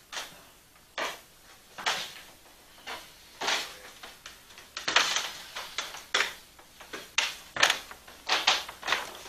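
A series of short scuffing and knocking noises, about one a second at first and coming quicker, two or so a second, in the second half.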